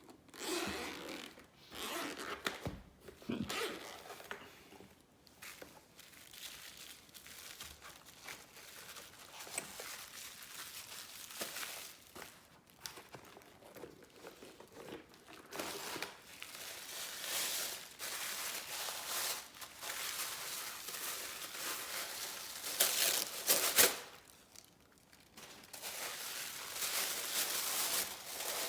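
Keyboard packaging being unwrapped and handled: plastic and paper crinkling and tearing in irregular bursts, with a louder burst about 23 seconds in.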